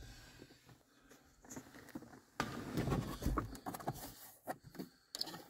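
Faint rustling and handling noise inside a car cabin, with a few light clicks, the sharpest about two and a half seconds in.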